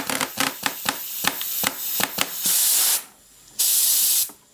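Compressed air from an air compressor hissing through a home-made BB machine gun in bursts. A rapid run of sharp clicks over the first couple of seconds is the BBs being blown out. The air stops briefly about three seconds in, then there is another short burst.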